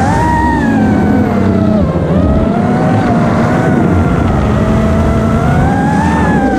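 iFlight DC5 FPV quadcopter's motors and propellers whining at flight throttle, the pitch sliding down and up as the throttle changes.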